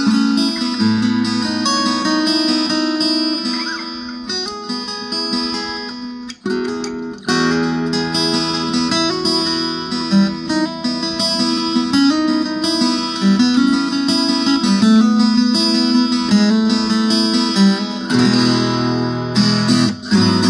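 A 1976 Japanese-made Yamaha FG-251 steel-string acoustic guitar played fingerstyle: picked chords and melody notes ringing on continuously, with a short break about six seconds in.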